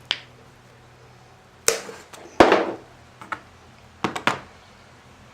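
Diagonal cutters snipping through an extension cord: several sharp snaps and clicks, the loudest about halfway through, and two quick ones near the end.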